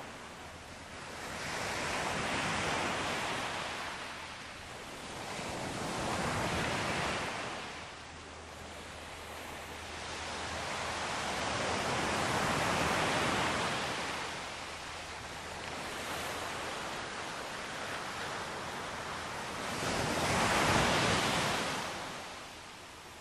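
Ocean waves washing onto a shore: a steady surf hiss that swells and falls back four times, with the waves coming every four to eight seconds.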